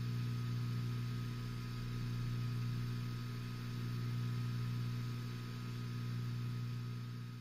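A steady low hum with a few overtones, swelling and easing gently every couple of seconds; it fades in and fades out.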